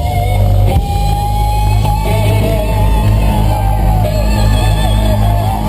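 Live country-rock band playing loudly over a concert PA, with a heavy, steady bass and a long held melody line wavering above it.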